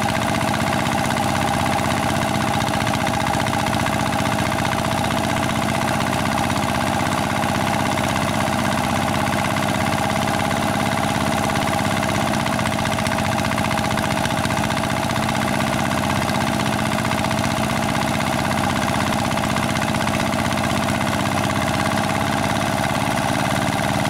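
Small engine running steadily, driving a rice thresher.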